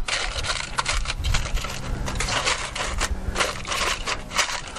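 Aluminium foil crinkling and crackling as it is pressed and creased around the rim of a cast-iron Dutch oven, a steady run of small crisp crackles.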